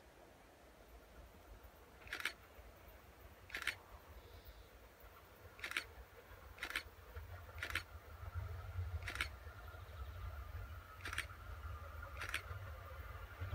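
Faint low rumble of a distant approaching train hauled by a ZSSK class 163 electric locomotive, growing from about halfway, with a faint steady high tone joining it. Eight sharp, irregular clicks, roughly one every second or two, stand out as the loudest sounds.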